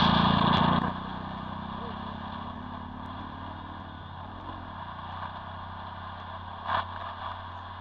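Electric motor and propeller of an FPV model aircraft buzzing, loud for about the first second, then dropping to a lower steady drone. A short sharp noise near the end.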